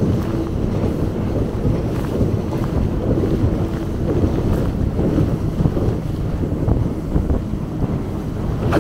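Steady wind buffeting the microphone and water rushing while riding a towed banana boat at speed, with a boat motor droning underneath.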